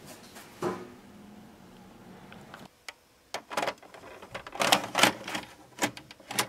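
VHS cassette being pushed into a JVC video cassette recorder, the loading mechanism taking it in. A faint steady run stops suddenly a little under three seconds in, then comes a series of sharp mechanical clicks and clunks, louder in the second half.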